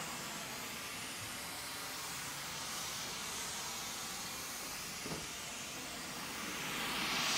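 White noise from a small loudspeaker swung around a Sennheiser MKH-416 shotgun microphone. The hiss is dimmer and duller while the speaker is off-axis and behind the mic, and comes back strong and bright near the end as the speaker swings back in front of the mic. There is a small knock about five seconds in.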